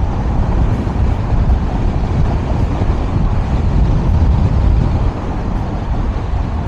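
Wind buffeting the microphone with a steady low rumble while riding a Nami Blast Max electric scooter at high speed.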